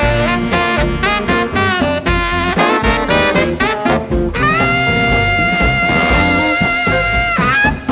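Blues band with a saxophone lead over bass and drums. The saxophone plays a run of quick notes, then holds one long note for about three seconds before breaking off near the end.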